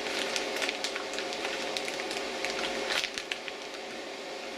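Handling noise from heavy-gauge silicone battery cables being bent and straightened: scattered light clicks and rustles over a steady background hum.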